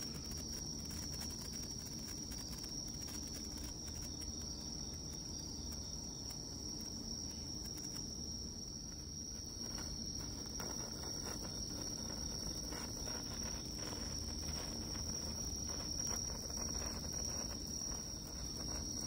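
Crickets chirping in a steady, unbroken high-pitched chorus.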